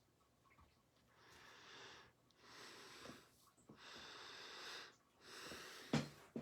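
Faint, slow breathing close to the microphone: about five soft breaths, each lasting around a second. A single sharp click near the end.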